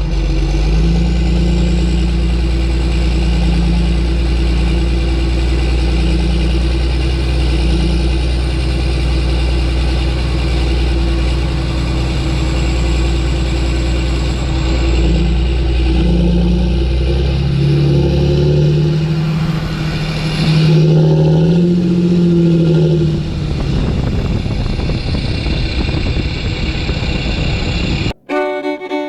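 An engine running steadily, then revving up and down a few times, before the sound cuts off suddenly near the end.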